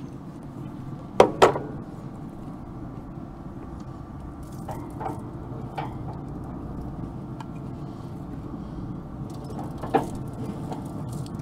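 Sharp metal knocks and clinks as racks of raw ribs are laid onto the pellet smoker's stainless grill grate beside a steel tray: two loud knocks about a second in, a few softer clinks midway and one more near the end, over a steady low hum.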